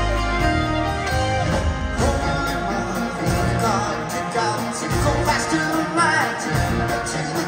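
Live rock band playing, led by electric guitar and keyboards, with a singer's voice over the music.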